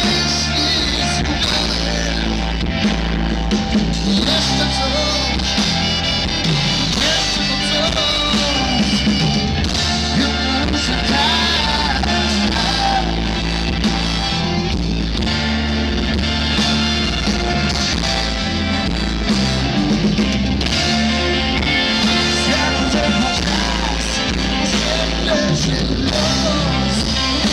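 Blues-rock band with a big band playing live, an instrumental passage between sung lines, heard from within the audience.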